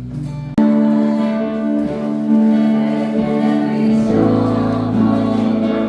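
Music with long, held chords and some singing. It starts abruptly about half a second in, after a short, quieter passage.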